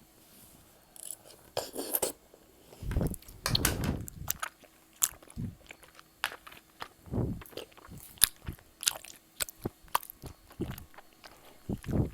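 Close-miked mouth sounds of eating wide bunmoja, chewy sweet-potato starch noodles from malatang: wet chewing and smacking with many sharp clicks and a few duller low thuds.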